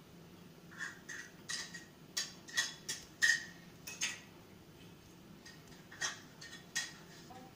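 Metal spoon clicking and scraping as it spreads a wet egg-and-onion filling over rolled dough: about a dozen short clicks, most of them between one and four seconds in, then two more near the end.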